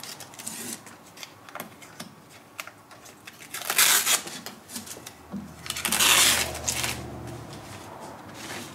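Blue painter's tape being peeled off an insulation pad on a metal panel: two long, noisy pulls about four and six seconds in, with light clicks and rustling as the pad and panel are handled.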